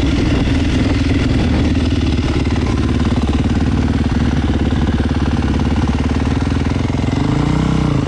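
Yamaha 450 motocross bike's single-cylinder four-stroke engine running steadily and loud, with a brief change in pitch near the end.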